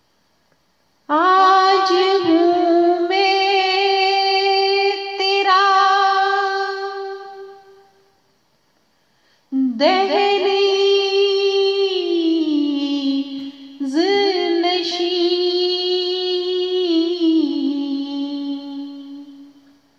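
A woman singing a naat unaccompanied, holding long drawn-out notes in two phrases. The first phrase fades out about eight seconds in, and the second begins a second and a half later.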